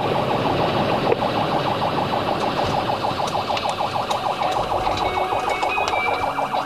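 Police car siren sounding in a rapid warble of many pulses a second, over the steady road and engine noise of a patrol car at pursuit speed.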